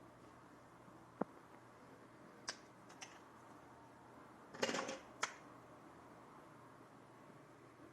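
Hair clipper handled with its motor off: a handful of separate sharp clicks, with a brief cluster of knocks about four and a half seconds in, the loudest, over faint background hiss.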